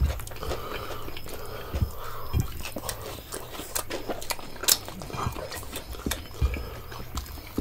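Chewing and mouth sounds of people eating rice and vegetables with their hands close to the microphone, with a scatter of small sharp clicks.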